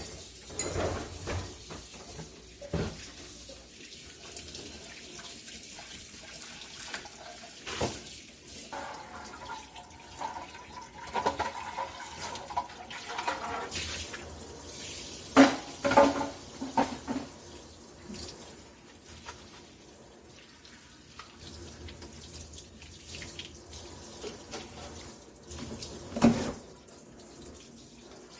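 Kitchen tap running into a sink while dishes and containers are washed, with a few sharp clatters, the loudest around the middle and near the end.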